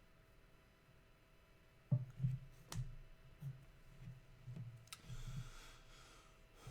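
Handling noise at a desk: soft low knocks with a few sharp clicks, starting about two seconds in after near-quiet room tone.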